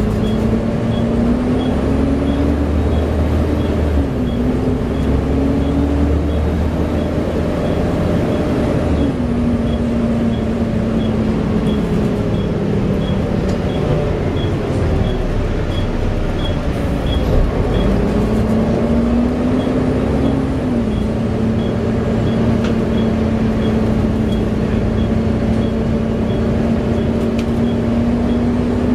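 Volvo B7TL bus heard from on board: the 7-litre diesel and ZF automatic gearbox running under way, with the loud cooling-fan 'hoover' whine. The whine's pitch climbs and drops back several times over a dense rumble, and a fast, regular ticking runs alongside.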